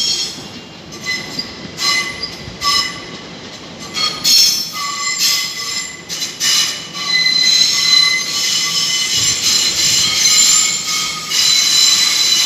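Train wheels squealing against the rails at several high, steady pitches, in short bursts at first and then continuously from about seven seconds in.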